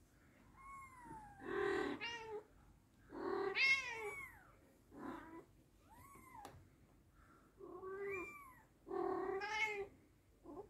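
British Shorthair cats meowing again and again: about seven drawn-out meows with gaps between them, some loud and some fainter and higher-pitched.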